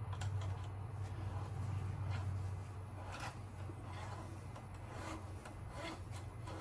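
Paper towel rustling and rubbing as it is handled, with a few soft brief scuffs, over a steady low hum.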